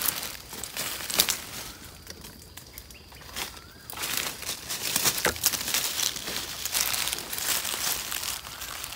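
Dry leaf litter and undergrowth rustling and crackling in two spells of movement through the forest floor, with a short lull between them.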